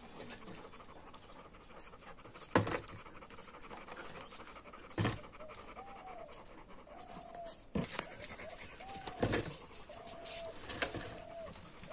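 Dogs panting, with a few sharp knocks spread through it. In the second half a short call that rises and falls repeats about once a second.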